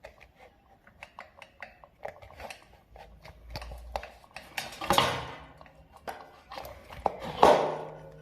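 Light clicking and clattering of hard objects being handled, with two louder clanks about five and seven and a half seconds in that ring on briefly.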